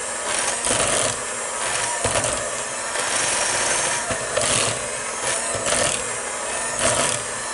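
Electric hand mixer running in a bowl, creaming butter into the cake batter, with the beaters scraping against the bowl in louder surges now and then.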